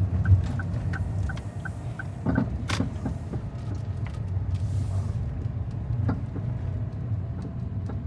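Inside a moving car: a steady low road and engine rumble, with a regular light ticking about three times a second that stops a little over two seconds in, and a couple of sharp clicks soon after.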